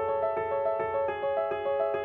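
Background music: a piano-like keyboard playing a repeating figure of quick notes, about four a second.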